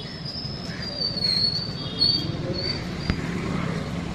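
A high, wavering squeal over a steady low rumble of street traffic, with one sharp click about three seconds in.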